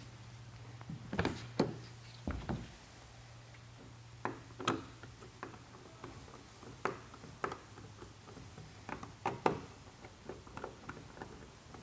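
Irregular clicks and knocks as a folding tonneau cover's rear panel is handled and the windseal rail's bolts are tightened with a screwdriver, with a sharp pair of knocks about a second in and scattered tool clicks after.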